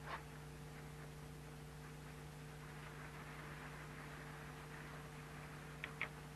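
Faint, steady low electrical hum with soft hiss, with a small click at the start and two quick clicks near the end.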